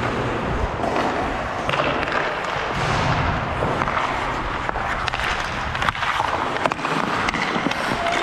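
Hockey skate blades scraping and carving on the ice during play, with a few sharp clacks of sticks on the puck and ice past the middle.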